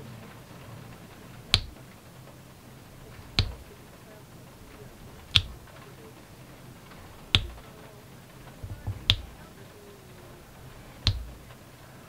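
Diamond-painting drill pen setting resin drills onto the sticky canvas, each placement a sharp click. The clicks come about every two seconds, with a quicker run of three around nine seconds in.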